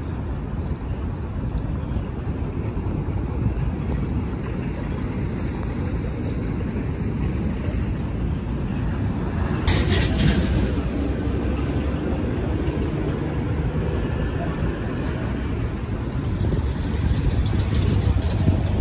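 Road traffic on a busy highway: a steady low rumble of passing cars and trucks, with a sudden louder rush a little before halfway as something passes close.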